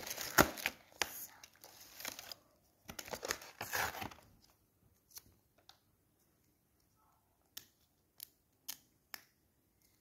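Toy packaging, cardboard and plastic wrap, rustling and crinkling as accessories are pulled out, in two bursts over the first four seconds. Then come a few light separate clicks of small plastic pieces being handled and set down.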